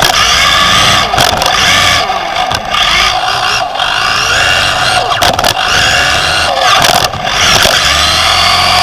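Onboard sound of a Team Associated B5M 2WD electric RC buggy racing: its electric motor and gears whine, rising and falling in pitch with the throttle, over steady tyre and drivetrain noise. Several sharp knocks are heard along the way.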